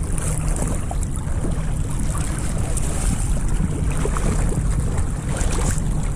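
Choppy water sloshing and lapping close to a camera at the surface, over a steady low rumble of wind buffeting the microphone.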